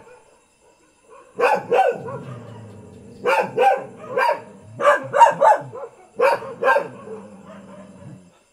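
Mixed-breed Thai village dogs barking: about ten short barks in pairs and quick runs, starting after a nearly quiet first second.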